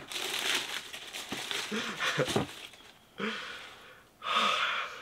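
Tissue paper and cardboard rustling and crinkling as a sneaker is unwrapped and lifted out of its shoe box. Near the end come a couple of short, breathy, excited vocal exclamations.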